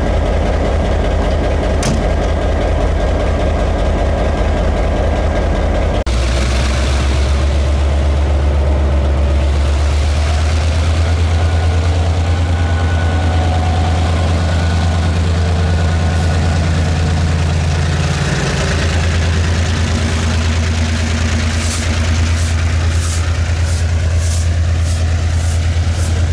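Diesel locomotive engine running with a steady low drone. The sound changes abruptly about six seconds in, and near the end a quick series of short ticks, about two a second, comes in over it.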